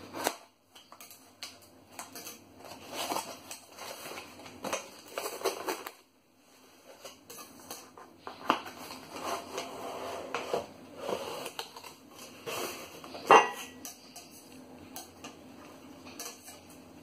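Cardboard shipping box being cut open and unpacked: tape slit, the flap pulled out and the lid lifted, with irregular scraping, rustling and tapping of cardboard. One sharp knock stands out about three-quarters of the way through.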